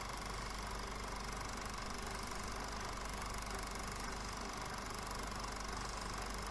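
Film projector running: a steady whir and hiss with a fast, even mechanical rattle.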